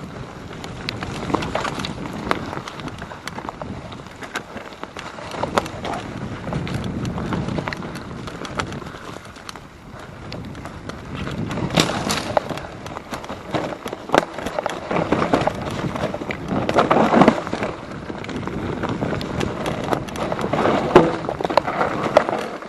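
Mountain bike riding down a rough trail: uneven tyre rumble that swells and fades, with frequent sharp knocks and rattles from the bike over the ground.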